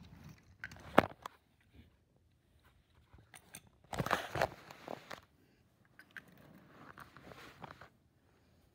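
Handling noise from a handheld camera being moved and rubbed against fabric: a sharp knock about a second in, a burst of rustling and scraping about four seconds in, and fainter rustling near the end.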